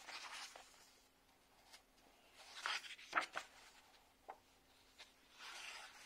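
Paper pages of a paperback activity book being turned by hand: three page turns, each a short swish of paper, the middle one with a couple of sharp paper snaps.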